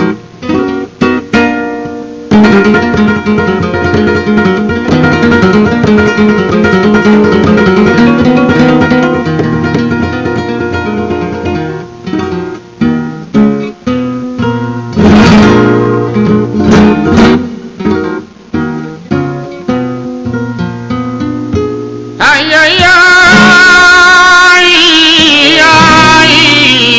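Flamenco guitar playing on an acoustic guitar, plucked runs and chords. About twenty-two seconds in, a flamenco singer's wavering, ornamented voice comes in over the guitar.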